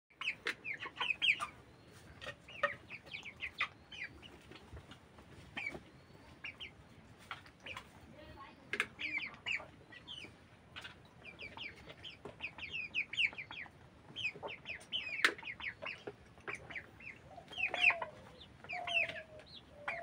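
A flock of broiler chickens calling: quick runs of short, high peeps mixed with clucks. A few lower, drawn-out calls come near the end, and sharp clicks are scattered throughout.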